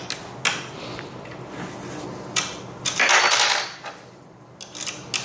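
Small metal pieces clinking: a few sharp clicks, then a louder jangling rattle lasting under a second about three seconds in, with more clicks near the end.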